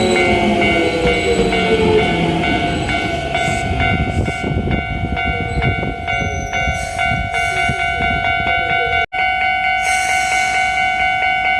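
Japanese level-crossing warning bell ringing in a fast, even repeating rhythm while an electric commuter train runs through the crossing. The train's motor whine falls in pitch near the start and its running rumble fades over the first half. The sound cuts out briefly about nine seconds in, then the bell carries on.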